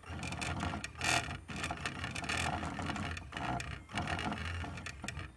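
Stepper motors of a homemade printer built from salvaged CD-ROM drive mechanisms, buzzing and whirring in short stop-start moves as the pen head traces many closely spaced lines on paper.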